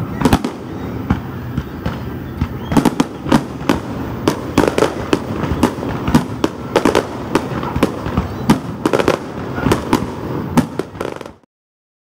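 Aerial fireworks display: a rapid, irregular string of sharp bangs and crackles over a continuous background din. The sound cuts off suddenly near the end.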